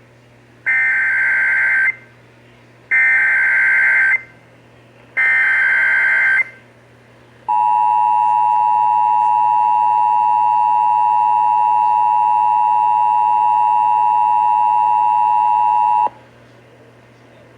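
Emergency Alert System tones broadcast on AM radio. First come three roughly one-second bursts of SAME digital header data, which encode the alert. Then the two-tone EAS attention signal is held steady for about eight and a half seconds and cuts off suddenly, announcing that a warning message follows.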